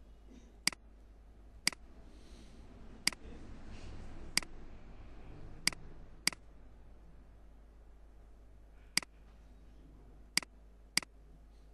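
Computer mouse clicking nine times at uneven intervals, sharp single clicks over a faint room hiss.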